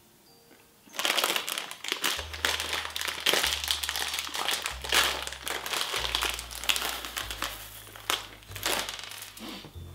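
Plastic candy bag crinkling and crackling as it is handled and pulled open, starting about a second in and going on almost without a break.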